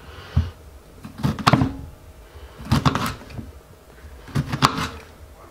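Kitchen knife cutting through a peeled lemon and knocking on a wooden chopping board, in short groups of knocks every second or so.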